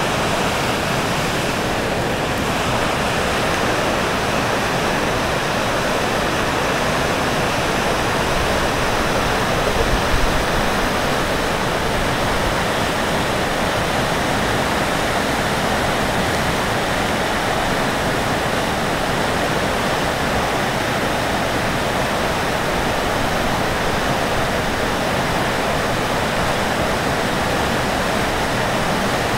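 The River Feale's water rushing steadily past the stone bridge piers.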